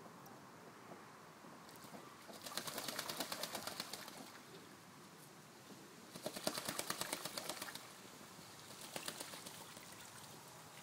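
Ducks splashing in the shallow water of a plastic paddling pool: three bursts of rapid pattering splashes, each one to two seconds long.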